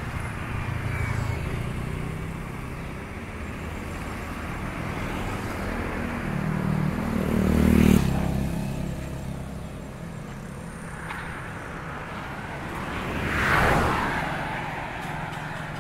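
Road traffic with a steady engine hum. A vehicle passes close about halfway through, and another passes a couple of seconds before the end, each swelling and fading.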